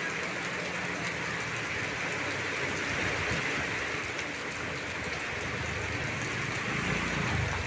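Steady rain, a constant hiss. Near the end a motorcycle's engine comes in low under the rain as the bike rides past.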